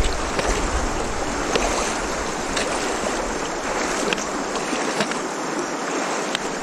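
Swift, high-running creek water rushing steadily around a person's legs as he wades across it, with small sharp splashes now and then.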